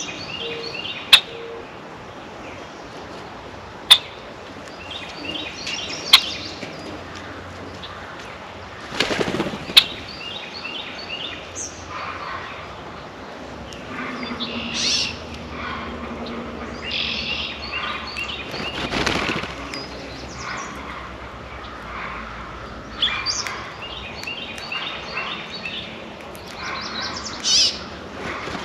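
Small songbirds at a feeder chirping in repeated short phrases, with a few loud sharp clicks in the first ten seconds and two brief rushes of wing flapping, one about a third of the way in and one about two thirds in.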